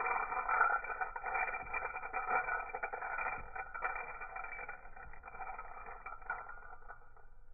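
Crankshaft main ball bearing from an Evinrude E-TEC 90 outboard spun by hand, a steady spinning noise with small ticks that fades over the last few seconds. This is the bearing diagnosed as faulty and blamed for the engine's vibration.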